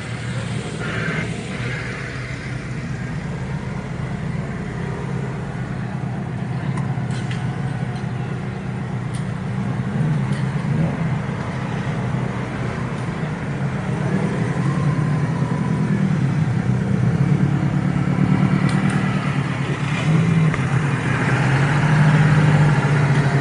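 Car engines running as cars drive off, a deep rumble that grows louder in the second half.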